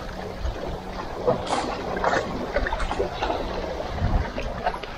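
Sea water washing and splashing among concrete tetrapods, with wind buffeting the microphone and a few scattered short clicks and knocks.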